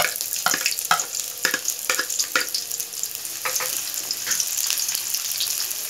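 Sliced onion sizzling in hot oil in a metal kadai, with a slotted metal spatula scraping and clinking against the pan as it is stirred. The spatula strokes come thick and fast for the first half, then thin out to a few.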